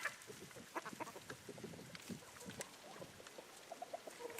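Chickens clucking faintly, with scattered small taps and rustles.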